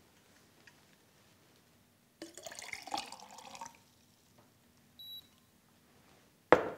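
Water poured from a glass jug into a glass mug, splashing for about a second and a half. A short high glassy ping follows, then a sharp knock near the end as the jug is set down.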